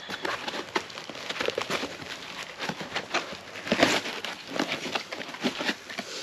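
Packaging rustling and crinkling, with scattered light knocks and clicks as parts are lifted out of a shipping box; a louder rustle comes about four seconds in.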